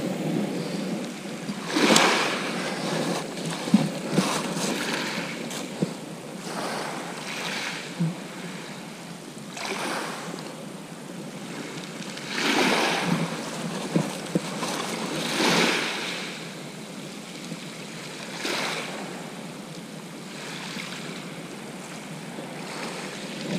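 Small waves breaking and washing up a shingle beach, the surf swelling every few seconds, with some wind on the microphone.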